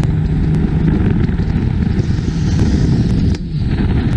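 Diesel long-tail racing boat engine running hard at speed, heard from on board, a steady loud drone that dips briefly about three and a half seconds in.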